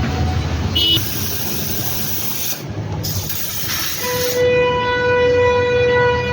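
A loud rush of hissing air for about three seconds, then a long, steady horn note that holds one pitch.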